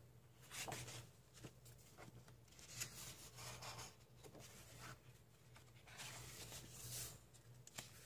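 Faint rustling and swishing of paper as coloring book pages are turned and smoothed flat by hand: several soft swishes about a second or so apart.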